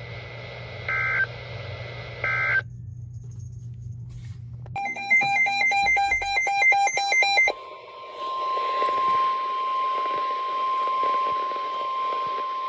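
Emergency Alert System tones on a NOAA Weather Radio broadcast. Two short beeps come over a low hum, then a pause; about five seconds in, a harsh digital SAME header data burst of rapidly switching tones follows. From about seven and a half seconds it gives way to the steady single-pitch 1050 Hz weather radio warning alarm tone that announces a new warning.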